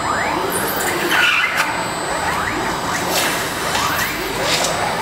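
Five-axis CNC router milling a foam block, giving a steady cutting noise from the spindle and bit. Over it, the axis drive motors whine up and down in pitch again and again as the head moves back and forth.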